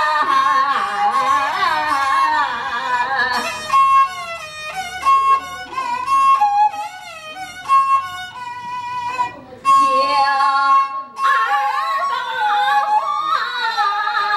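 Woman singing Chinese opera through a microphone and small loudspeaker, accompanied by a two-string bowed Chinese fiddle (huqin). After a few seconds the voice drops out and the fiddle plays a passage of held and clipped notes alone. The singing comes back near the end.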